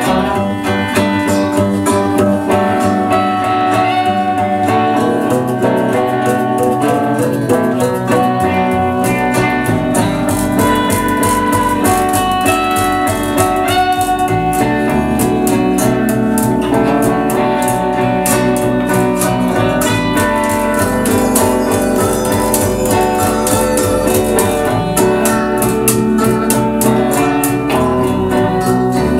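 Instrumental passage of a live guitar and upright double bass trio: electric and acoustic guitars strumming and ringing over plucked double bass. The low end grows fuller about nine seconds in.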